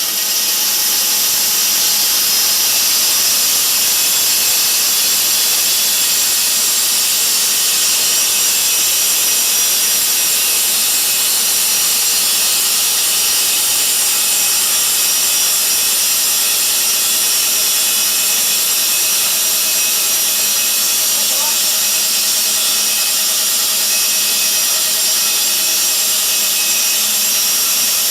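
Electric-motor portable horizontal band sawmill running steadily, its band blade sawing through wood with a steady high-pitched hiss and whine.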